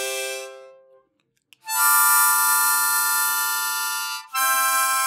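10-hole diatonic harmonica sounding long, held chords of several holes at once, each one a full deep breath drawn or blown through the reeds. A chord fades out about a second in, a new one starts after a short gap and holds for about two and a half seconds, then after a brief break another begins.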